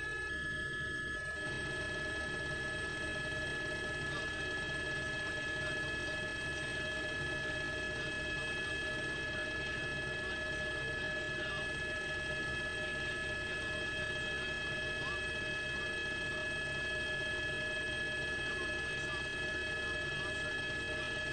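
Helicopter noise heard from inside the aircraft: a steady machine drone with several constant high whining tones, unchanging throughout.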